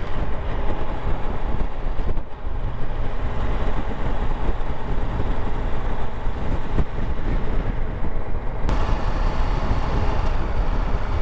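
Steady wind rush with engine and road noise from riding a motorcycle at speed. The high hiss brightens suddenly about nine seconds in.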